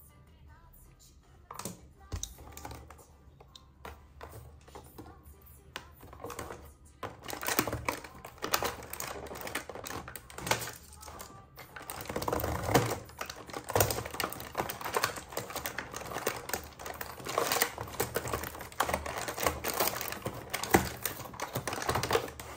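Small plastic toys and their packaging being handled: a run of sharp clicks and crackles, scattered at first and becoming dense and busy from about seven seconds in.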